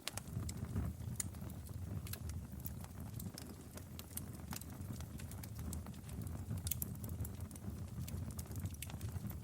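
Wood fire in a fireplace crackling, with scattered sharp pops over a steady low rumble that sets in suddenly at the start.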